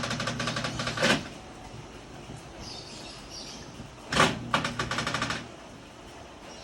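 Panasonic NA-V160HDH washing machine running in short bursts of a rapid, even clicking rattle over a low hum: the abnormal noise it has made since its main control board was replaced. One burst stops about a second in, and another runs from about four seconds in for just over a second.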